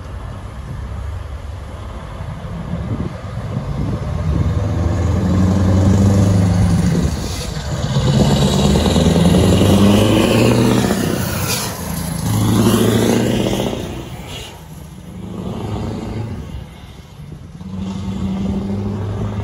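Scania V8 truck with an open exhaust pipe pulling away under load, its revs climbing and dropping back in steps as it shifts up through the gears. It is loudest as it passes, about halfway through, then keeps pulling as it moves off.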